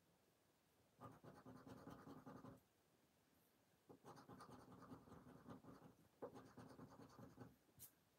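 Plastic poker chip scraping the scratch-off coating from a lottery scratch card, faint, in three spells of rubbing. A single light click comes near the end.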